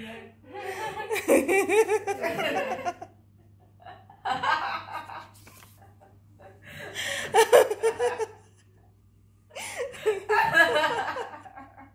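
A boy laughing hard in four bouts of one to two and a half seconds each, with short pauses between.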